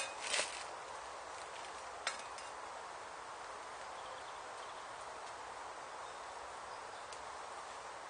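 Steady outdoor woodland background hiss, with a short rustle of paper packaging near the start and a single light click about two seconds in.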